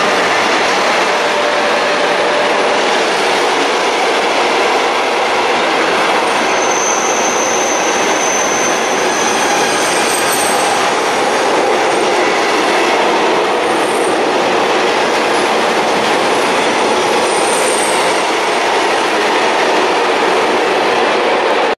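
A train hauled by an electric freight locomotive passing close by at speed: a loud, steady rush and rumble of the wagons' wheels on the rails. A high wheel squeal is held for about three seconds starting around seven seconds in, and a few short squeals follow.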